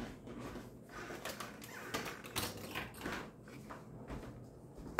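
Scattered light clicks, knocks and rustles of kitchen items being handled, irregular and fairly quiet.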